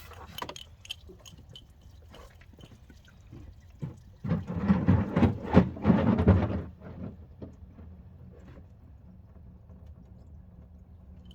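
Engine coolant dripping and trickling from the cooling system into a catch pan while the thermostat is being removed. About four seconds in, a louder burst of splashing and knocking lasts two to three seconds, then the drip carries on.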